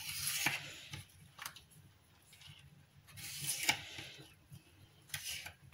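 A knife slicing and scraping through softened, blanched cabbage leaves on a wooden cutting board to cut out the tough rib. It comes in three short spells of rustling scraping, with a few light knocks of the blade on the board.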